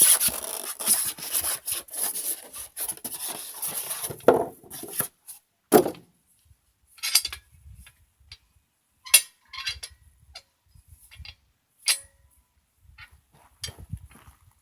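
A chop saw stand's roller end being handled: about four seconds of steady rubbing and scraping, then a few scattered knocks and taps with quiet gaps between them.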